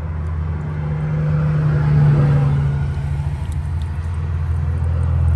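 Low, steady rumble of a motor vehicle, swelling about two seconds in and then easing off.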